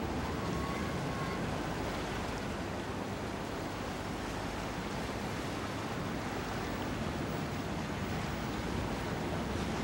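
Steady rush of sea water and wind, heard from aboard a coastal passenger ship under way.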